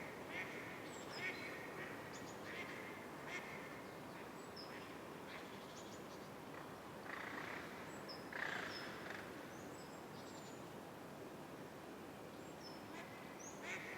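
Ducks quacking in short bouts, a few calls in the first seconds and again past the middle, with brief high chirps of small birds over a steady outdoor background hiss.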